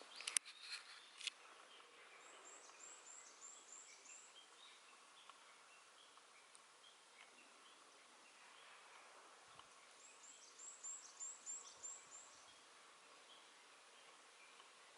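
Faint birdsong: two runs of seven or eight quick, high, falling notes, about eight seconds apart, with scattered softer chirps between them. A few sharp clicks come in the first second or so.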